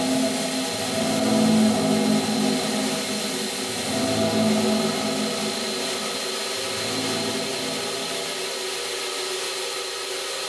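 Belt grinder running, with a 1095 steel knife blade pressed against the abrasive belt in the first few seconds and again briefly around four seconds in, then the belt running on its own, a steady whine with fixed tones.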